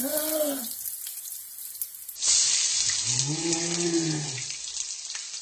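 A short yelp of pain from a hot-oil burn off the frying pan, over a steady sizzling hiss. About two seconds in comes an edited-in sound effect: a long, low, drawn-out groan that rises and then falls in pitch.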